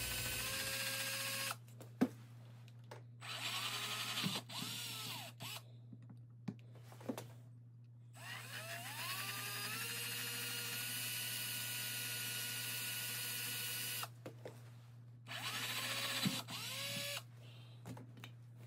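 Cordless drill boring small lubrication holes through the skirt of a Suzuki RM125 two-stroke piston. The motor runs in several separate bursts, each spinning up with a rising whine; the longest runs steadily for about five seconds in the middle. There are a few sharp clicks between the bursts.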